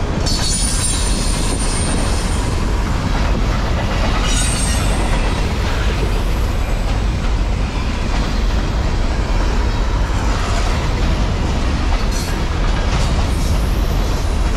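Freight train's loaded container flatcars rolling past at speed: a steady rumble of steel wheels on rail, with brief high wheel squeals about a second in, around four seconds in, and near the end.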